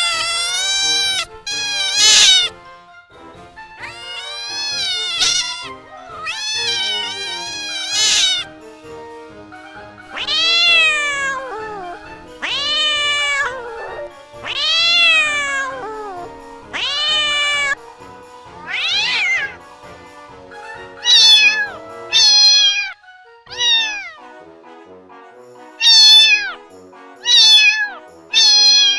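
Domestic cat meowing over and over, about fifteen meows, each rising then falling in pitch, the later ones shorter and quicker. Soft background music plays underneath.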